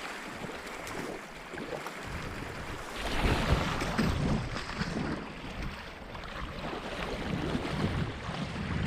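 River whitewater rushing around a kayak being paddled, with wind buffeting the microphone; the water gets louder about three seconds in.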